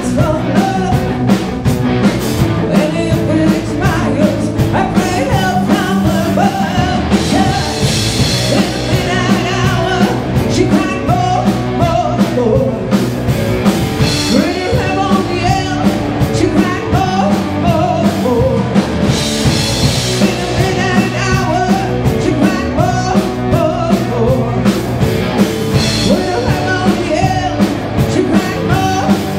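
Rock band playing live: a woman singing lead over two electric guitars, a bass guitar and a drum kit, with a steady beat.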